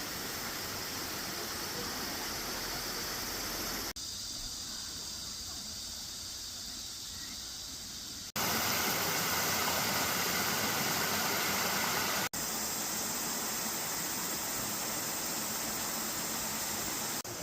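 Valley stream water rushing as a steady hiss, cut abruptly about 4, 8 and 12 seconds in, with the level jumping at each cut; the third stretch is the loudest.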